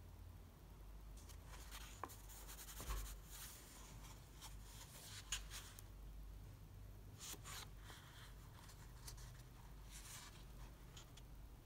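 Faint rustling and rubbing of thick handmade-paper sketchbook pages as hands smooth them flat and turn them, in several short swishes.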